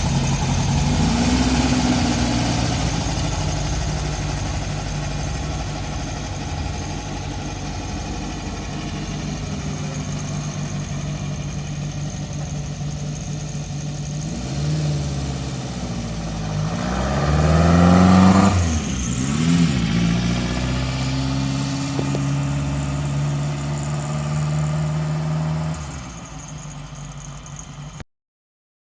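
A car engine running steadily, revved up and down a few times about halfway through, then cut off abruptly near the end.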